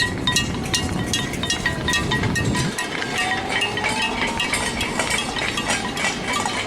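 Rapid repeated metallic clinking, about three strikes a second with a ringing tone, over a low rumble that stops about three seconds in.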